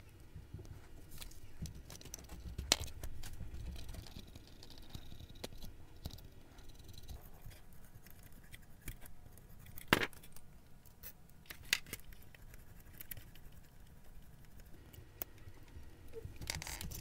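Faint, scattered clicks and taps of small metal parts being handled as wheelsets and a truck are fitted back onto an HO scale model steam locomotive's frame, with a sharper click about three seconds in and another about ten seconds in.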